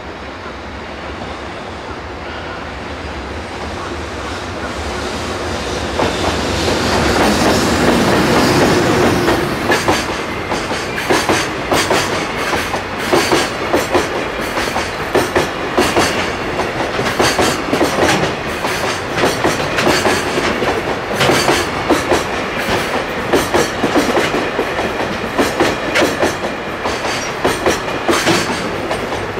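Electric freight train approaching and passing at speed: the locomotive's noise builds to a peak after about seven seconds, then the container wagons roll by with a steady clickety-clack of wheels over rail joints, knocks coming in pairs two to three times a second.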